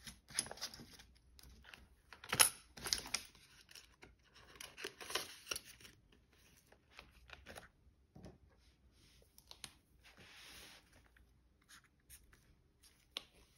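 Banknotes and cash envelopes being handled: irregular bursts of paper rustling and crinkling.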